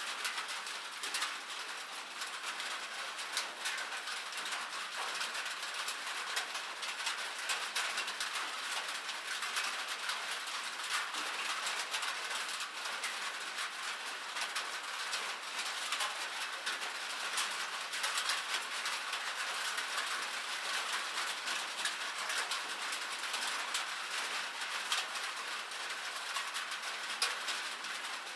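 Light rain pattering steadily, a dense hiss of many small, irregular drop ticks.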